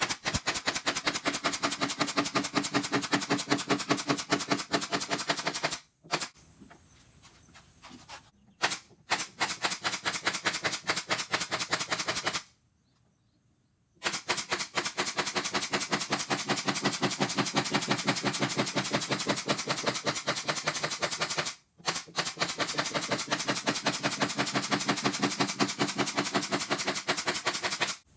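A power tool running in several stretches of a few seconds each, making a rapid, even clatter of repeated impacts, with short stops between the runs.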